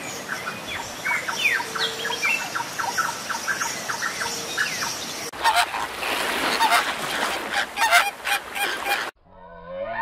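A flock of flamingos honking and calling in goose-like bursts for the second half, then cutting off about a second before the end. Before that, many short chirping bird calls over a steady hiss.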